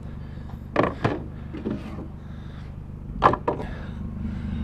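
Wooden cabinet drawer being pushed and pulled: about five sharp knocks and scrapes, loudest about a second in and again a little after three seconds, as the drawer jams and won't go in all the way. A steady low engine hum runs underneath.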